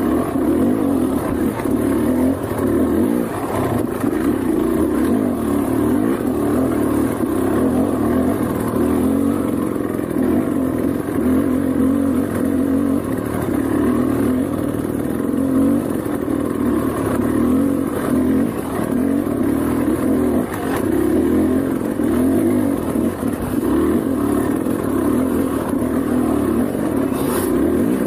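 Motorcycle engine running under way on a trail ride, a loud, steady, fluctuating drone.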